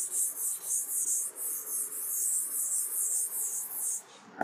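Crickets chirping in a steady, evenly pulsing high-pitched rhythm, about three pulses a second, stopping just before the end.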